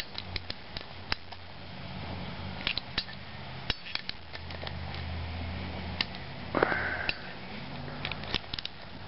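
A ratcheting torque wrench clicking in short, irregular runs as the 17 mm hub bolts are snugged to 15, with a quicker run of clicks about two-thirds of the way through. A steady low hum runs underneath.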